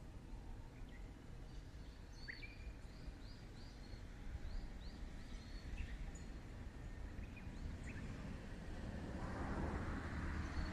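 Small birds chirping, short repeated high chirps over a steady low outdoor hum. About nine seconds in, a broad low rumble and rushing noise begins to build and grow louder.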